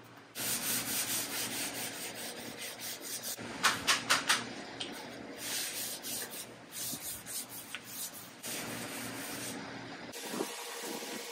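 Gray Scotch-Brite pad scuffing by hand across the primed metal body of a 1951 Vendo 39 Coke machine, a rough back-and-forth rubbing with a few harder strokes about four seconds in. This is the final scuff before paint, meant to take off rough edges and leave a smooth surface. The scrubbing gives way to a quieter sound about ten seconds in.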